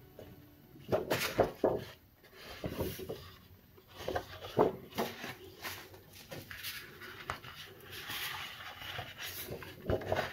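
Large sheets of scrapbook paper being handled and leafed through: irregular rustling and soft flaps of paper, loudest about a second in and again a little before the halfway point.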